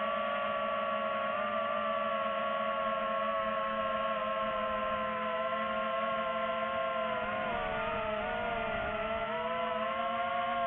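DJI FPV drone's electric motors and propellers whining steadily, several tones moving together; the pitch wavers and dips about two thirds of the way through, then rises again as the motors change speed.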